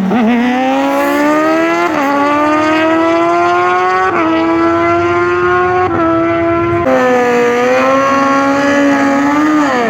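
Racing engine at full throttle, accelerating through the gears: the pitch climbs, dips briefly at four gear changes, then falls as the throttle is lifted near the end.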